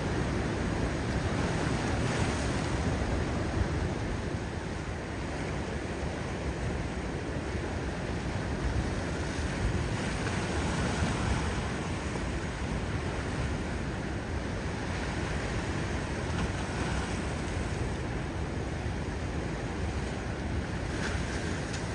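Ocean surf, large waves breaking and washing in, with wind on the microphone adding a steady low rumble.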